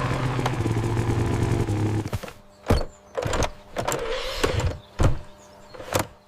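A small motor's steady hum for about two seconds, which then stops. Several separate thumps and knocks follow at uneven intervals.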